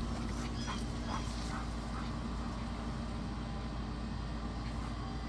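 A dog making a few faint, short sounds in the first second and a half, over a steady low hum.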